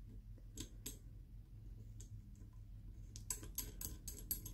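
Faint scattered clicks and taps of small objects being handled: a few single clicks, then a quick cluster of them about three seconds in, over a low steady hum.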